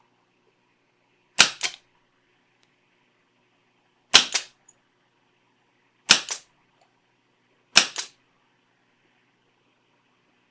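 Solenoid-operated vacuum pump of a 30-watt electric desoldering iron firing four times. Each firing is a sharp double clack as it sucks molten solder out of circuit-board joints.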